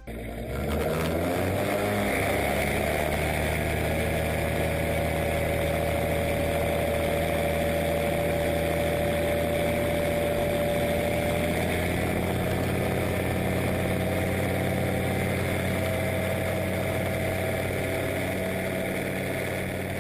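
Single-cylinder, liquid-cooled Pollini engine of a DAR Solo ultralight, with its pusher propeller, running at takeoff power. It climbs in pitch over the first couple of seconds, then holds a steady note as the aircraft takes off on skis.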